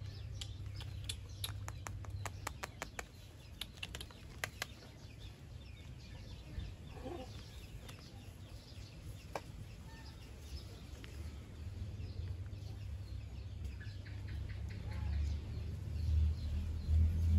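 Outdoor ambience with faint bird calls, a quick run of light clicks in the first few seconds, and a steady low rumble that swells near the end.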